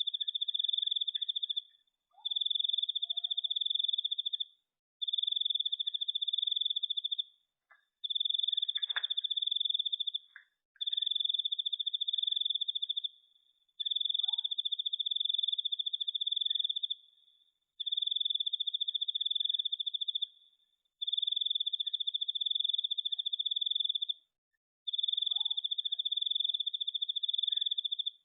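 A cricket trilling at one high pitch in long bouts of two to three seconds, each broken off by a pause of about half a second.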